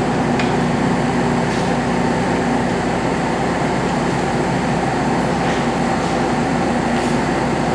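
Metal lathe running steadily while machining a sawmill mandrel's fast collar, an even mechanical hum with no let-up.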